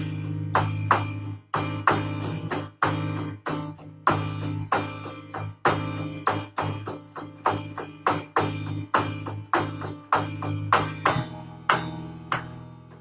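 Instrumental improvisation: a stream of plucked string notes, each struck sharply and dying away, over a sustained low drone that drops out about eleven seconds in.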